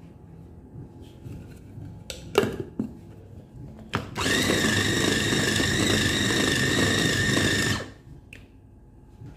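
Electric mini chopper with a glass bowl grinding raw chicken thigh meat with seasonings. A few clacks as the motor head is set on the bowl about two seconds in, then the motor runs steadily with a high whine for about three and a half seconds and stops abruptly.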